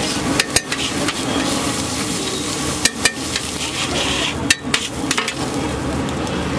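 Long metal spatula scraping and clacking on a large flat griddle (tawa) as an egg mixture fries with a steady sizzle. Sharp metal clacks come in pairs, three times: near the start, about three seconds in, and about four and a half seconds in.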